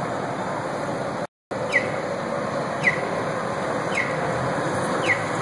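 Steady outdoor street noise, with a short falling chirp repeating evenly about once a second. The sound cuts out completely for a moment about a second in.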